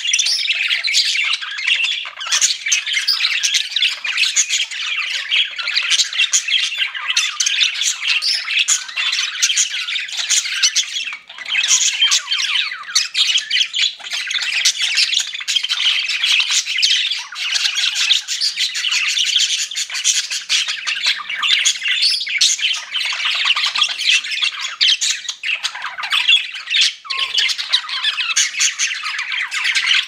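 Several budgerigars chirping and singing together without a pause.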